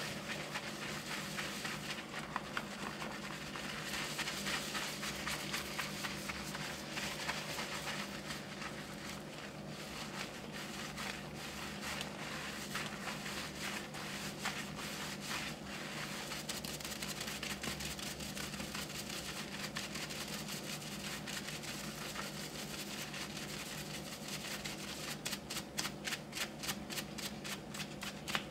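Fingertips scrubbing shampoo lather through a man's hair, a close, crackling, squelching scratch of foam and hair against scalp. Near the end the scrubbing turns into quick, even strokes, several a second.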